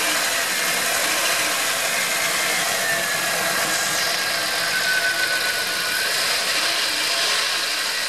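Chrysler 318 (5.2-litre) small-block V8 idling steadily, with a faint high whine that wavers a little in pitch. Its flex plate runs clear now that the bent engine-to-transmission cover plate has been cut away, so there is no scraping.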